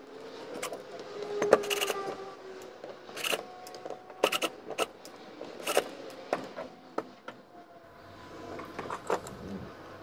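Handling noise at a workbench: a series of sharp clicks and knocks as a cordless drill and a plastic router jig are picked up, fitted and set down, the loudest about one and a half seconds in.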